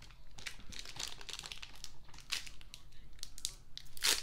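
Plastic Kit Kat wrapper crinkling as it is handled and torn open, a quick run of irregular crackles with a louder crackle near the end.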